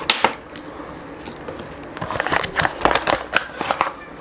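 Packaging being handled as an item is taken out of a product box: a sharp crackle at the start, then a run of small clicks and rustles from about two seconds in.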